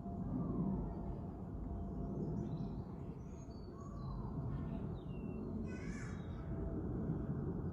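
Birds calling over a steady low rumble: short gliding calls and chirps, with one louder call about six seconds in.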